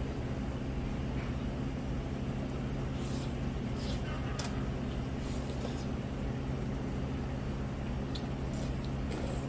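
A steady low mechanical hum throughout, with several short hissy slurps of jjajangmyeon noodles being eaten from about three seconds in.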